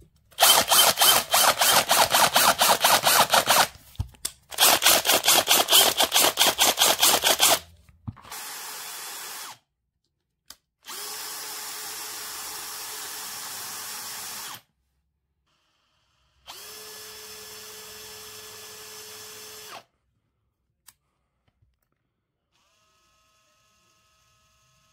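Bosch GSR 18V-55 brushless cordless drill driver running with no load, started and stopped five times. The first two runs are loud, with a fast, regular rattle; the last three are quieter and steady, with an even motor whine.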